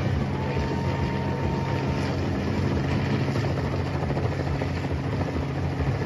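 Helicopter hovering overhead: a steady low rotor beat with the drone of its engine.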